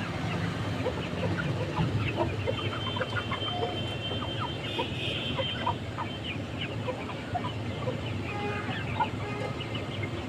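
A flock of birds calling: many short overlapping chirps and clucks, over a steady low hum.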